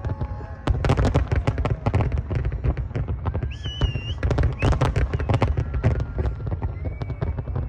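Large aerial fireworks display: a rapid, dense barrage of bangs and crackles over a continuous low rumble, with a brief high whistle about halfway through.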